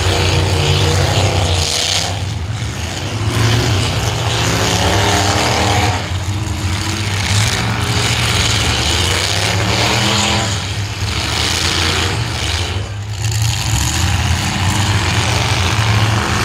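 Engines of several full-size demolition derby cars running loudly and revving up and down again and again.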